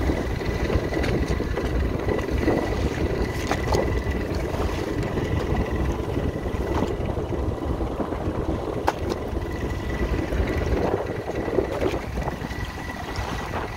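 Steady rumble of a motorized push-net fishing boat under way, with water rushing along the hull and the loaded net.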